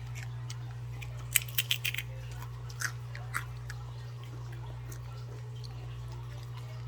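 Someone crunching and chewing Takis rolled tortilla chips: a quick run of sharp crunches about a second and a half in, two more around three seconds, then quieter chewing over a steady low hum.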